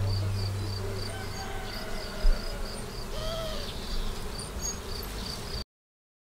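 The tail of background music fading out under a faint, high insect chirp repeating about four times a second, with one low thump about two seconds in. Everything cuts off abruptly near the end.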